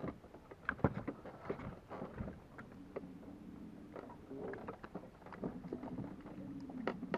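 Bow-mounted electric trolling motor humming steadily from about a third of the way in, with a short break near the end. Scattered light clicks and knocks from fishing gear being handled in the boat.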